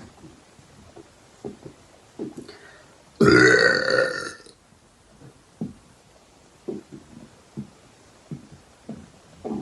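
A woman's single loud, drawn-out burp, lasting over a second, a little past three seconds in. Short faint clicks come before and after it.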